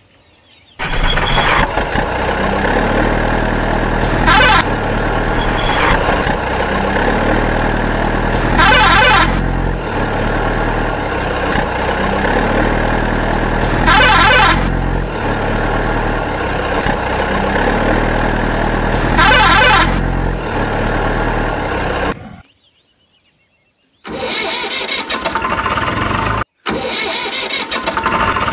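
Vehicle engine sound running on a repeating loop, with a brief louder burst about every five seconds. It cuts out about 22 seconds in, and a different engine sound starts two seconds later.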